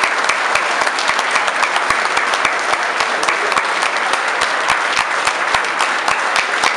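Audience applauding steadily, with many sharp individual claps standing out.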